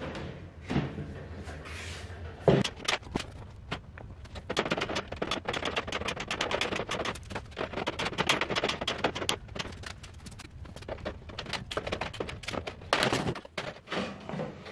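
Cutters snipping through a welded-wire cage mesh: a long, quick run of sharp metallic clicks, one per wire strand cut. A couple of wooden knocks come first, in the opening seconds, as the wooden door frame is handled.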